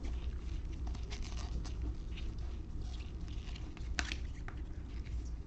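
A stack of football trading cards being flipped through and shuffled by hand: light rustling and soft clicks of card edges, with one sharper snap about four seconds in, over a low steady hum.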